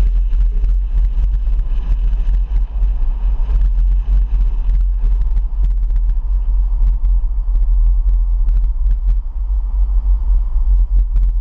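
Steady low rumble of a car driving along a highway, with a few scattered light clicks.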